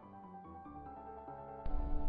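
Soft background music of held piano or keyboard notes, with a brief louder sound coming in near the end.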